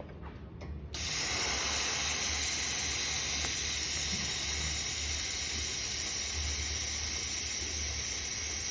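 TIG welding arc striking about a second in, then burning as a steady, even hiss, over a low steady hum. A few faint metal clinks come just before the arc starts.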